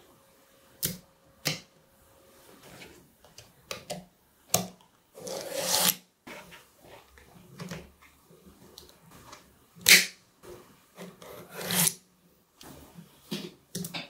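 Small magnetic balls clicking as clusters snap onto the magnetic-ball structure, a few single sharp snaps (the loudest about ten seconds in), with two longer rattling runs as pieces are pressed and slid along the rows of balls.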